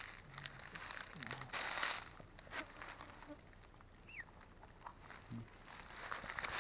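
Footsteps crunching through dry leaves and undergrowth, loudest in the first two seconds, then quieter. A single short falling bird chirp about four seconds in.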